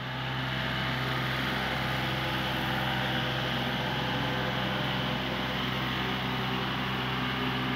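A steady machine drone, a constant low hum with an even hiss over it and no change in pitch or level.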